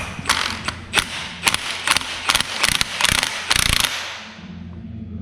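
Hand ratchet wrench clicking in a run of quick back-and-forth strokes, working a bolt on an LT1 V8 engine being torn down. It fades out after about four seconds.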